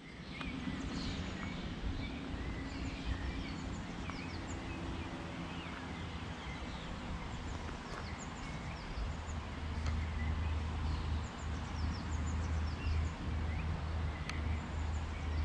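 Outdoor pondside ambience: small birds chirping now and then over a steady background hiss, with a low rumble that grows stronger about nine seconds in.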